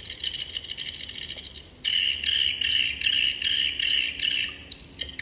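Edible-nest swiftlet lure call (outside call No.39) played through a FUJIBIN 32W swiftlet sound system: a dense, high, fast twittering trill. About two seconds in, a louder, lower chirping pattern cuts in, pulsing a few times a second, and it eases off near the end.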